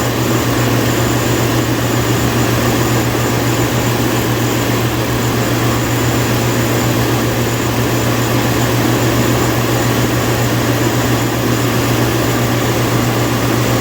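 2012 Chevrolet Silverado's 5.3 L V8 idling with a steady drone while it misfires on cylinder one.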